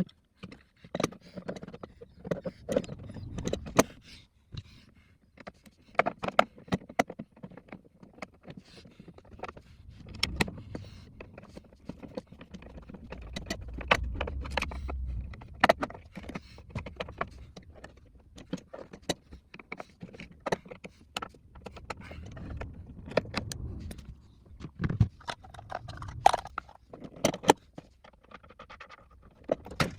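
Irregular clicks, knocks and scrapes of tools and parts being handled while working on a lawn mower, with some low rumbling handling noise in between.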